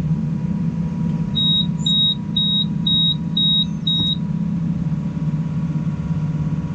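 New Holland T7 tractor engine running steadily under baling load, heard from inside the cab. About a second and a half in, six short high electronic beeps sound about half a second apart.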